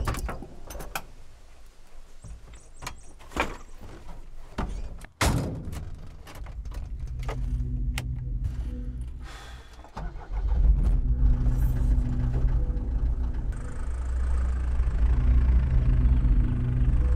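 Van cab sounds: a run of clicks and thunks from door and controls, then about ten seconds in the van's engine starts and runs steadily with a low drone.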